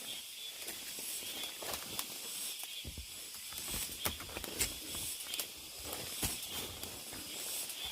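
Cicadas droning in a steady, high-pitched chorus, with a hiker's footsteps on the trail at a walking pace, about one step a second.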